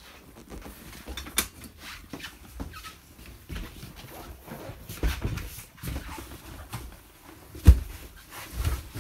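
A faux-leather sofa being folded down into a bed by hand: rustling and squeaking of the cushions with irregular clicks and knocks from the hinged frame, and one sharp thump about three-quarters of the way through as the back drops flat.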